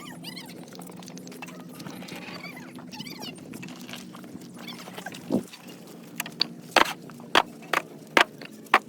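A steady low machine hum, with a run of sharp knocks, about two a second, starting about six seconds in.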